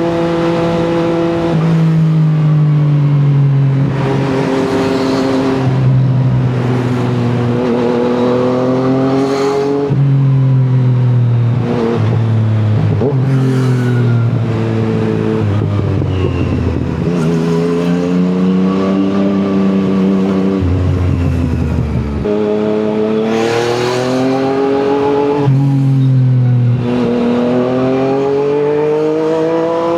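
Yamaha MT-09's three-cylinder engine through an Akrapovic exhaust, pulling up through the gears: the revs climb for a few seconds, drop at each shift and climb again, many times over.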